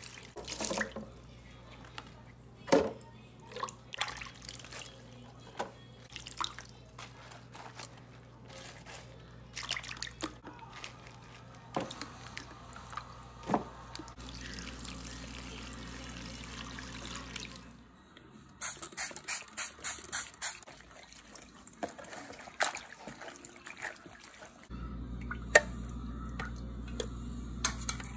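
Water dripping and splashing as lettuce leaves are rinsed in plastic tubs of water, with many scattered clicks and knocks from handling. A steady low hum comes in for a few seconds midway and again near the end.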